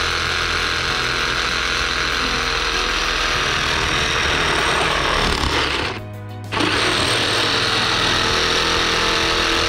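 Reciprocating saw cutting through PVC pipe, a steady rasping buzz that breaks off for a moment about six seconds in and then resumes.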